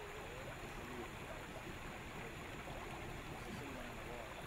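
Steady rushing noise of river water around a small boat, with faint voices murmuring now and then.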